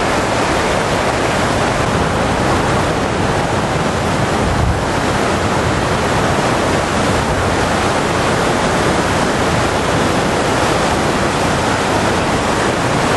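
Muddy flash-flood runoff rushing across a highway, a steady loud rush of water, with wind buffeting the microphone.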